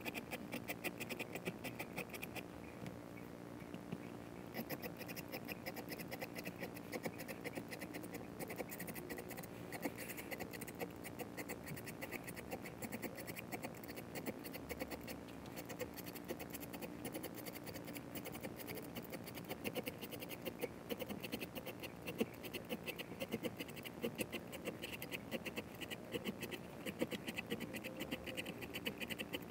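Small file scraping in quick, short strokes across the stainless steel fret ends of a maple guitar neck, shaping and rounding them smooth.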